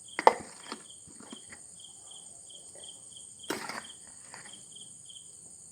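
A few light clinks and knocks of a spoon against a bowl as flour is measured into it, the sharpest about a quarter-second in and another about three and a half seconds in. Under them a cricket chirps steadily, about two high chirps a second.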